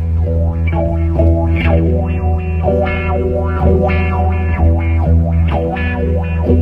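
Music: a guitar played through effects with some distortion over a steady held bass note.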